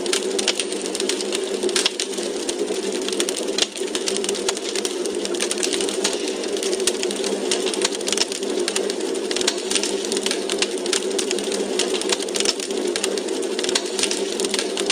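Wood fire crackling in a fireplace: frequent irregular small pops and snaps over a steady hiss.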